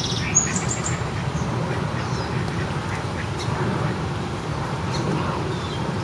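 Ducks quacking now and then over steady outdoor background noise.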